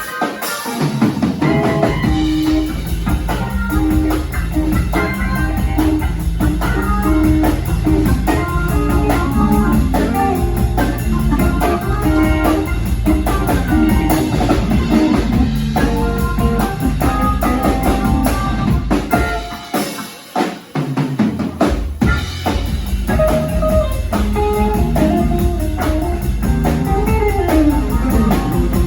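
Band music with drum kit, guitar and bass playing steadily; about twenty seconds in, the low end drops out for a couple of seconds before the full band comes back in.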